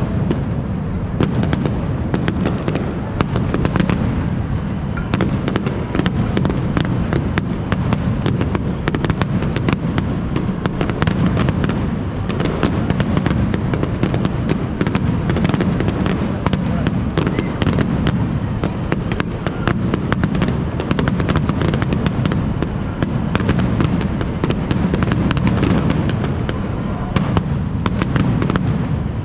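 Fireworks exploding in rapid, continuous succession: many sharp bangs and crackles over a steady low rumble.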